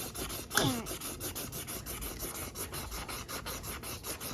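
A child colouring on paper with a crayon or marker in quick back-and-forth scribbling strokes, about six a second. About half a second in, a short, louder sound slides down in pitch.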